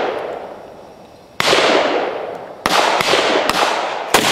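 AK-pattern rifle fired in single shots, about five in all at irregular spacing, each crack followed by a long echoing decay.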